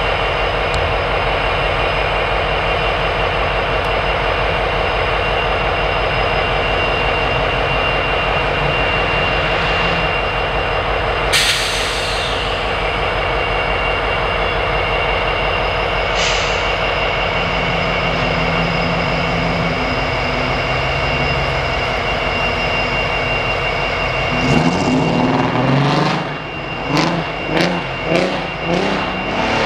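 Diesel freight locomotives, a consist of seven, running steadily at close range, with a sharp hiss of released air about a third of the way in and a shorter hiss about halfway. Near the end the engine sound swells in uneven pulses.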